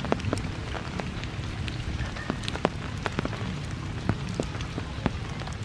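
Rain falling steadily on forest vegetation, with irregular sharp drips of large drops landing close by.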